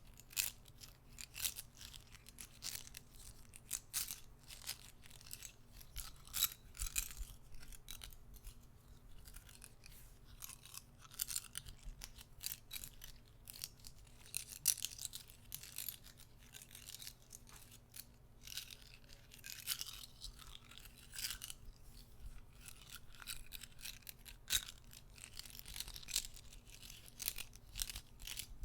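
Plastic guitar picks handled close to the microphone: many irregular soft clicks, taps and scratchy rubs, coming in quick uneven clusters.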